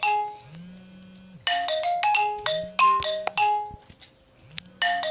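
Android phone alarm ringtone playing a short electronic melody over and over, in phrases with brief pauses between them.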